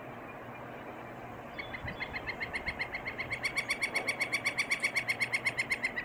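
A woodpecker's long, rapid run of sharp, pitched notes. It begins about one and a half seconds in, quickens to about eight or nine a second, and keeps going to the end.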